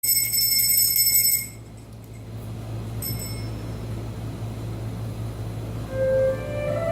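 A high metallic ringing tone, like a struck bell or chime, sounds for about a second and a half, rings again briefly about three seconds in, and then fades over a low steady hum. Near the end a flute starts playing a slow melody.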